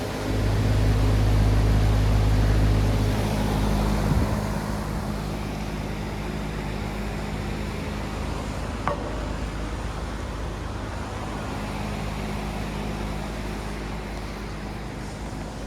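Outdoor heat pump unit running in heating mode: a steady low compressor hum under fan noise. It is louder for the first few seconds, and there is one sharp click about nine seconds in.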